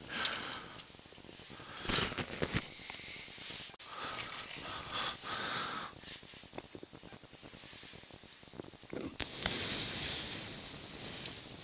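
Quiet rustling and scattered light clicks of handling, with a breathy hiss lasting about two seconds near the end.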